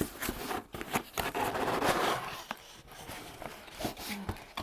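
Plastic packaging bags rustling and crinkling as they are handled and pulled out of a box, with small scrapes and knocks; the rustling is loudest about two seconds in.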